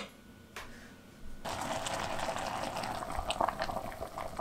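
Stockpot of vegetable-scrap broth boiling: a steady bubbling with small pops that begins about a second and a half in.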